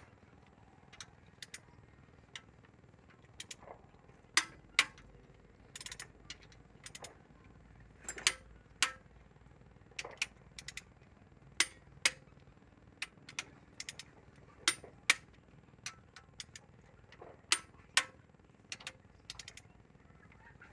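Click-type torque wrench clicking as each cylinder head bolt is tightened: sharp clicks every second or two, often in pairs, each one signalling that the set torque of 12 kgf·m has been reached.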